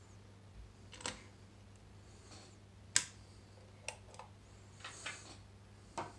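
A handful of sharp plastic and metal clicks, one about every second, the loudest about three seconds in, with a brief scrape near five seconds: a plastic child safety plug cover and metal screws being worked into a UK plug socket, its spring-loaded shutters forced open.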